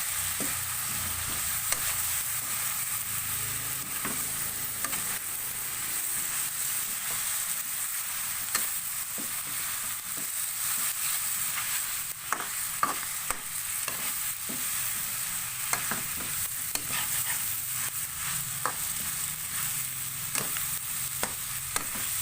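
Chicken sizzling as it fries in a pan with freshly added curry powder. A spatula is stirring it, with frequent sharp clicks and scrapes against the pan, which become more frequent about halfway through.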